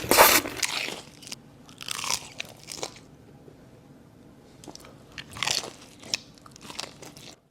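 Crispy fried chicken being bitten and chewed close to the microphone: loud crunches in the first second, softer chewing, then another run of crunching bites from about five seconds in. The sound cuts off abruptly near the end.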